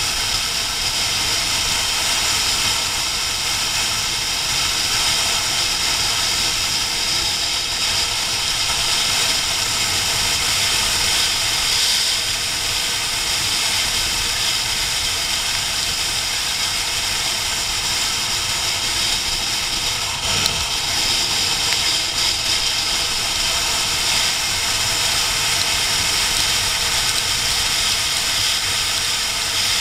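Steady rush of wind over the microphone of a camera on an inline-four sportbike riding at speed, with the engine running underneath. A single short knock about two-thirds of the way through.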